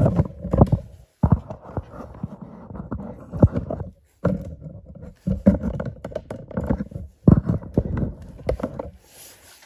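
Irregular knocks, clunks and rubbing from a snowblower carburetor with its rubber fuel and vacuum lines being handled and worked into place on the engine. The noises come in bursts with brief silences between them and die down near the end.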